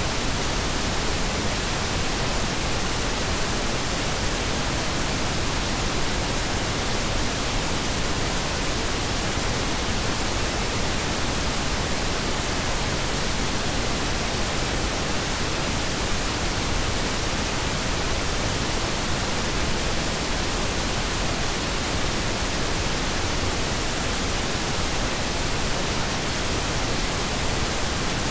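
Pink noise: a steady, unchanging hiss with equal energy in each octave, so it sounds softer and deeper than white noise.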